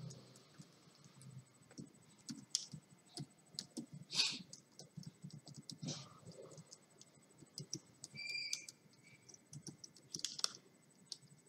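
Faint, irregular light clicks and taps, several a second at times, like keys being pressed, with a brief high whistle-like tone about eight seconds in.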